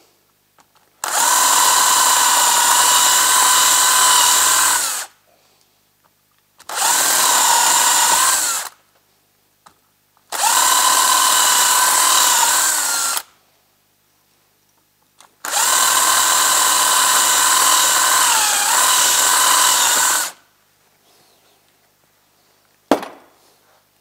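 Cordless drill drilling out the rivets that hold the caps on snowmobile bogie wheels, in four runs of a steady whine, the last dipping briefly in pitch. A single knock near the end.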